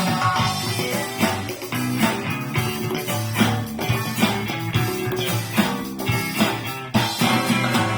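Instrumental guitar-led stretch of a rock song played through Soviet 10MAS-1M 8-ohm bookshelf speakers driven by an LG DT-S797 system.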